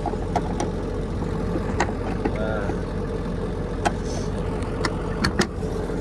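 John Deere 7720 tractor's six-cylinder diesel engine running steadily while baling, a constant low drone. Several sharp clicks and knocks are scattered through it, two of them close together near the end.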